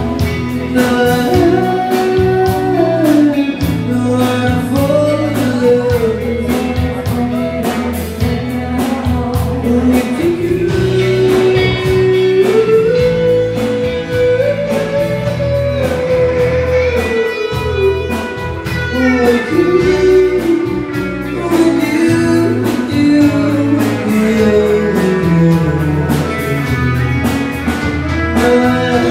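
A woman singing a slow song live with a small band behind her, guitar prominent, her voice holding long notes that slide from one pitch to the next.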